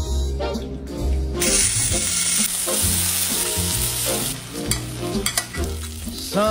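Chicken breast searing in butter in a stainless steel skillet, a loud hissing sizzle that starts about a second and a half in, followed by a few sharp clicks and scrapes as a spoon bastes the hot butter over the meat.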